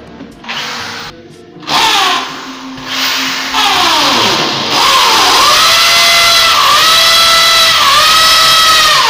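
Corded electric drill boring a hole into the wall. It runs continuously from about two seconds in, its motor pitch repeatedly sagging and recovering as the bit bites into the wall.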